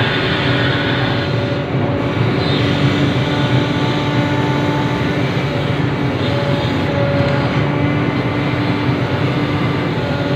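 Sumitomo SH350 excavator's diesel engine running steadily, a dense drone with a few held tones over it.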